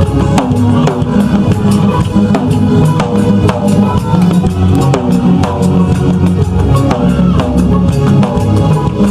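Instrumental band music: a drum kit playing a steady beat over a heavy bass line, with pitched instrument lines that slide down in pitch every second or so.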